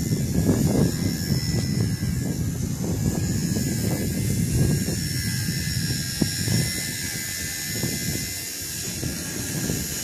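WL Toys V977 RC helicopter's electric motor and rotor, a steady high whine, as it flies low and sets down. Strong wind buffets the microphone with a gusty rumble.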